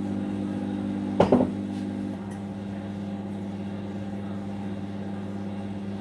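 Whirlpool microwave oven running a heating test with its newly replaced magnetron: a steady low mains hum. A single loud clunk comes about a second in.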